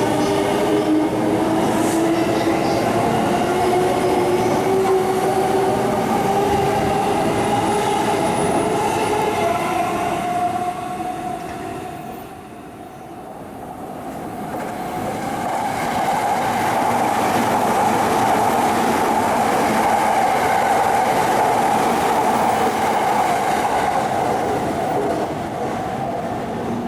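JR East electric commuter trains going by in succession: the first train's motor whine glides in pitch over several tones, the sound drops away about twelve seconds in, then a second train comes through loudly and steadily before easing off near the end.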